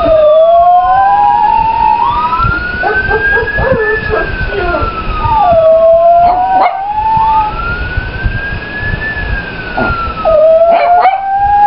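A police siren wails in slow rising and falling sweeps while a Chihuahua howls along with it. The dog gives three long rising howls, with shorter yips and wavering cries between them.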